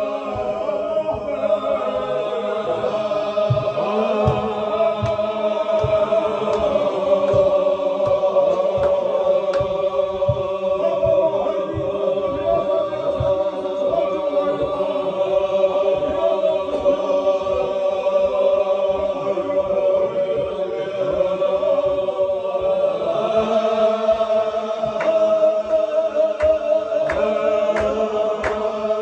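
A circle of men chanting a Chechen Sufi zikr together: a sustained, droning unison chant with a steady low thudding underneath it. Several sharp claps come in near the end.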